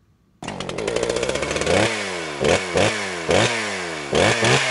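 Two-stroke chainsaw engine revving, starting suddenly about half a second in; the throttle is blipped over and over, the pitch jumping up and sinking back after each blip.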